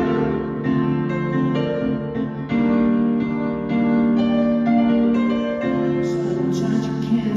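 Solo piano played live on a Roland stage keyboard: sustained chords changing every second or so.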